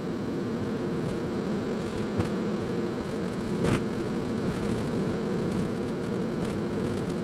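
Road and engine noise of a car driving, heard from inside the car and sped up four times, so it runs as a steady buzzing drone. A couple of short knocks cut through it, the louder one about halfway through.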